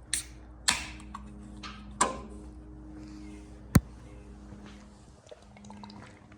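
A few scattered knocks and clunks, with one sharp click a little past halfway, over a faint steady hum.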